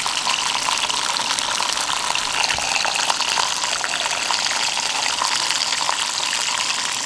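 Hot oil sizzling and crackling steadily in a cast-iron skillet as skin-on fish fillets and pieces of fish milt fry.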